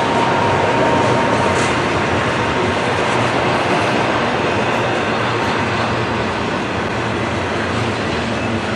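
Double-stack container well cars of a freight train rolling past: a steady, loud rumble and hiss of steel wheels on the rails, with a faint thin whine that fades after about two seconds.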